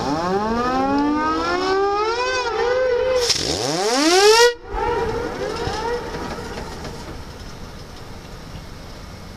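Steamship George Stephenson's steam whistle blowing. Its pitch slides upward and wavers for about three seconds, then a second, steeper rising blast cuts off sharply about four and a half seconds in and echoes briefly across the water.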